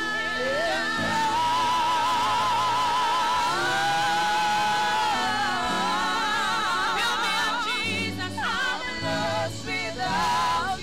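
Congregational gospel praise singing: voices holding long notes with a wavering vibrato over a steady instrumental backing.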